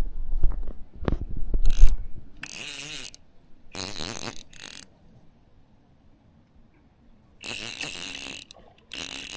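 Fishing reel whirring with a ratchety gear sound in several short bursts, each about half a second to a second long. The first two seconds hold louder low rumbling and thumps.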